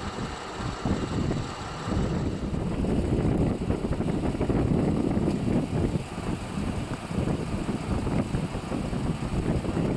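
Wind buffeting the microphone: a gusty low rumble that swells about two seconds in and stays rough and uneven.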